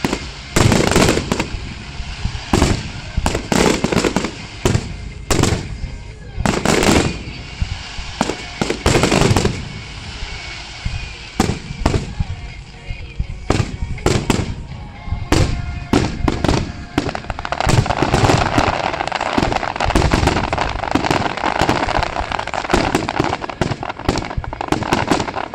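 Fireworks display: aerial shells bursting in a rapid, irregular series of loud bangs. In the second half a dense crackling builds up under the continuing bangs.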